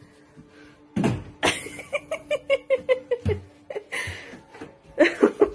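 A person laughing: a quick run of short 'ha-ha' bursts, about five or six a second, starting about a second in, with more laughter near the end.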